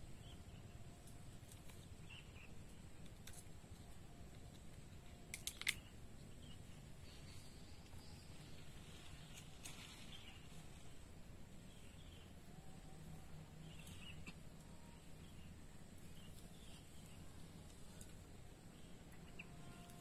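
Quiet forest ambience: faint scattered bird chirps over a low rumble and a faint steady high tone, with one sharp snap about five and a half seconds in.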